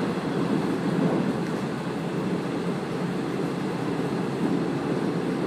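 Steady running rumble of the Kaze-kko diesel railcar, heard from inside the train as it travels along the line, with no distinct clicks or beats.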